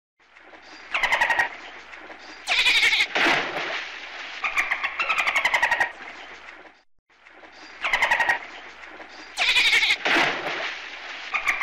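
Dolphin calls: trains of rapid clicks mixed with high whistles that fall in pitch. The same sequence of clicks and whistles starts over about two-thirds of the way through.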